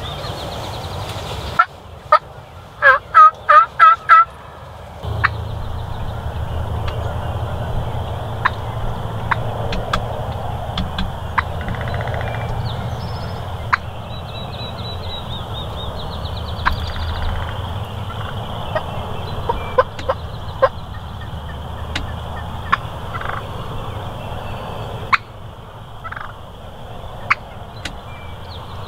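Wild turkey calling: a loud run of about six pitched notes about two seconds in, then a few faint short calls and scattered ticks over a low steady rumble.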